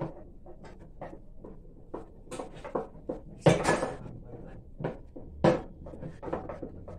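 Scattered light knocks and clinks of momo-making utensils, a wooden rolling pin working on a wooden board among steel pots and plates, with louder knocks about three and a half and five and a half seconds in.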